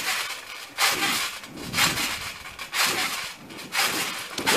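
Trampoline mat and springs under a person bouncing on a mat strewn with Orbeez water beads. Each bounce gives a rasping creak and rustle, about once a second.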